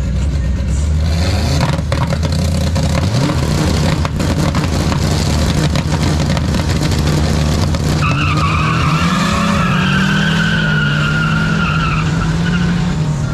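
Volkswagen Gol hatchback engine revving at a drag-strip start line, with rough tyre noise as it launches. In the second half a high, wavering squeal runs for several seconds.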